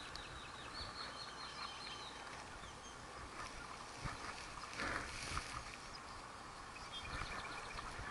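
Small birds chirping in quick runs of short high notes over a steady outdoor hush, with a few knocks or splashes from the kayak about midway.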